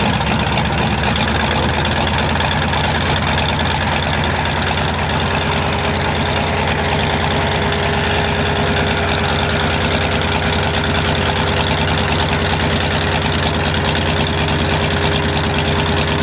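Rotec radial engine of a Blériot XI replica running steadily at a low, idle-like speed while it turns the propeller.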